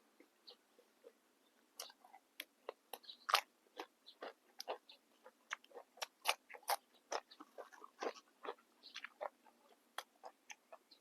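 Close-up chewing of crisp, fresh raw vegetables: a quick, irregular run of crunches that starts about two seconds in.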